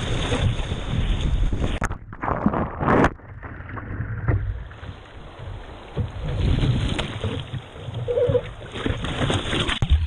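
Sea water splashing and sloshing against a GoPro's waterproof housing as a surfer wades out through small waves, with wind buffeting the microphone; near the end the camera dips under the water.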